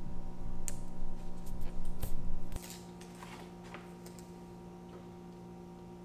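Light clicks and taps of a clear acrylic tray being handled and set in place, over a steady low hum. A low rumble of handling stops about two and a half seconds in, and a few clicks go on briefly after, leaving only the hum.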